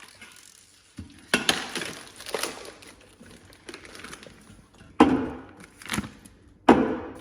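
Drink cans and bottles being handled and set into a drawer: sharp knocks and clinks, the loudest about a second in, about five seconds in and near the end, with softer clinks between.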